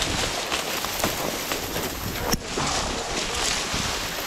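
Dry grass and brush rustling and crackling against a hunter's clothing as he walks through thick cover, with a sharp snap about two and a half seconds in.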